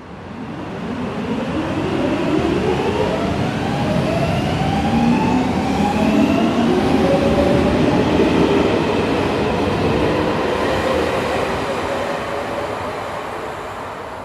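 Metro train departing: a rumble builds up quickly, and the electric traction motors whine in several tones that rise in pitch as the train gathers speed. The sound fades over the last few seconds as the train pulls away.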